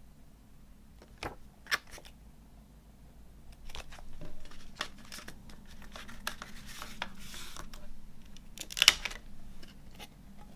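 Hands handling a CD and its packaging: scattered sharp clicks and rustling, with the loudest click a little before the end.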